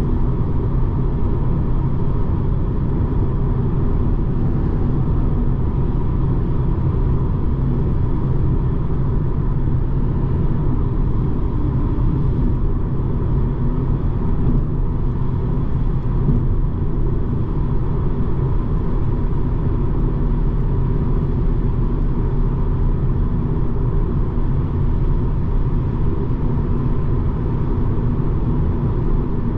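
Steady road, tyre and engine noise of a BMW 220d xDrive Gran Coupe, with its four-cylinder diesel, driving at an even pace on the autobahn. It is a constant deep rumble with a faint steady tone on top, and nothing changes.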